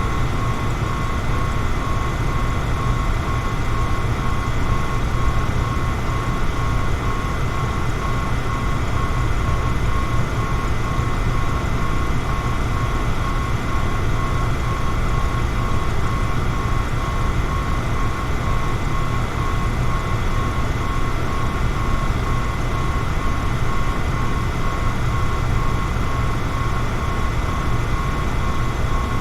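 Electric fan running steadily: a constant whooshing hum with a strong low rumble and a faint steady whine on top, unchanging throughout.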